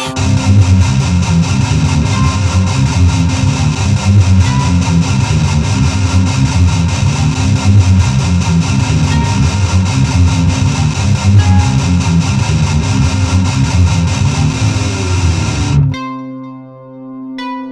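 Electronic rock music led by a heavily distorted guitar over a pulsing low end. It cuts off abruptly about sixteen seconds in, leaving a few sustained, spaced-out electronic notes.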